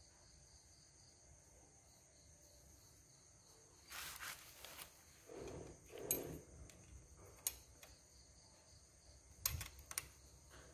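Faint metal clicks and scraping as a ring spanner and tappet adjusting tool are fitted onto the valve rocker-arm adjuster of a motorbike engine, a few scattered handling noises and sharp clicks starting about four seconds in. A faint steady high-pitched hiss lies underneath.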